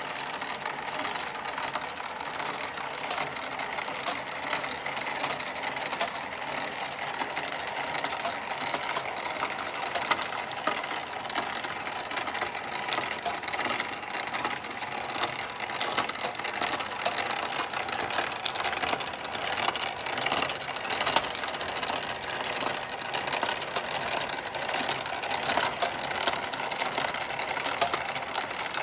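Tinplate toy steam engine, Ferris wheel and model workshop machines all turning together on pulleys and belts, driven by a hand crank rather than steam: a steady, fast clattering rattle of many small moving parts.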